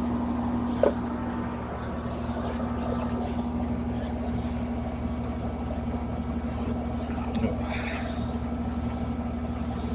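Steady electrical-mechanical hum from running air-conditioning equipment, a mains-pitched drone, with a small click about a second in.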